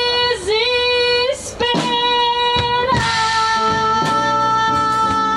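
Live band music with a woman singing long held notes. Guitar chords come in under a steadier high note about three seconds in.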